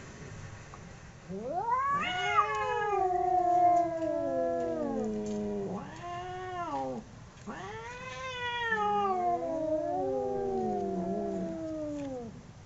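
Two cats caterwauling at each other: long, drawn-out yowls that rise, then slowly sink in pitch, with a short wail in between. In the last yowl the two voices overlap, one above the other.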